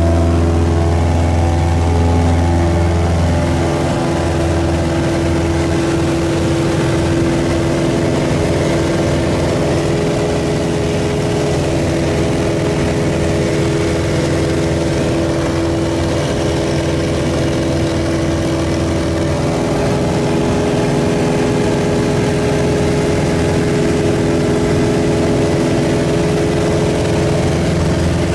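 Piper Super Cub bush plane's engine and propeller droning steadily, heard from inside the cabin as the plane takes off from a gravel strip and climbs out. The drone is steady, with a small drop in the low hum a few seconds in.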